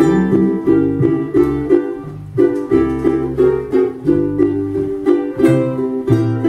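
Ukulele and plucked upright double bass playing an instrumental passage together, with the ukulele's chords in a brisk, even rhythm over walking bass notes.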